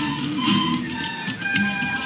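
Recorder playing a simple melody of held notes over an accompaniment with a steady beat.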